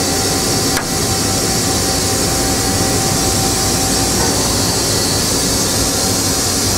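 Steady machinery noise of a plant floor, an even hiss and rumble from running equipment, with a thin steady whine that stops about four seconds in and a single click about a second in.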